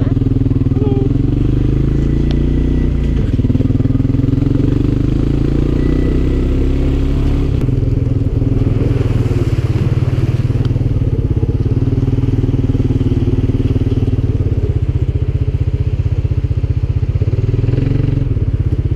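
ATV engine running steadily under way, a low, even engine note, with a brief rise of hiss about halfway through.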